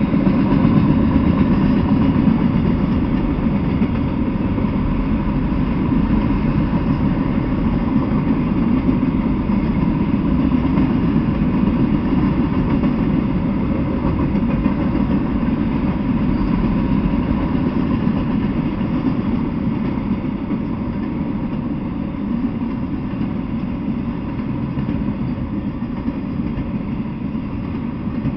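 Freight train of autorack cars rolling past: a steady low rumble of wheels on the rails, even throughout, with a faint steady whine above it.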